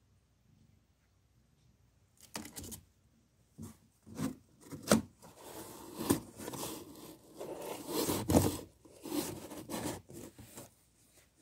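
Cardboard being handled: a hand slides and presses a cardboard flap against a cardboard box, scraping and rustling in irregular bursts that start about two seconds in.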